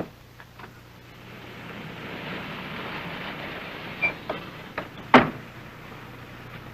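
A car pulls up on a dirt drive: a rising rush of engine and tyre noise that eases off as it stops, then a few clicks and a single loud car door slam about five seconds in.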